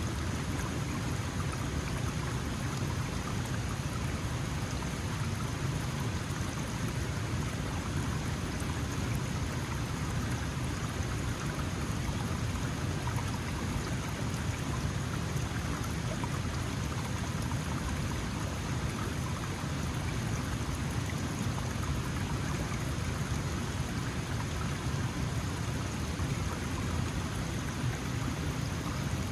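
Small mountain stream flowing steadily over rocks, an even rush of water with a fine trickling, splashing texture.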